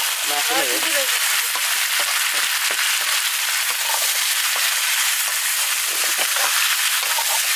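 Chicken pieces and onion sizzling as they stir-fry in a wok, with the spatula scraping and clicking against the pan now and then.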